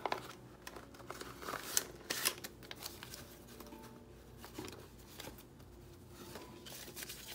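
Soft rustling and flicking of paper banknotes as a stack of cash is fanned and counted by hand, with the crinkle of a clear plastic binder envelope being opened near the start.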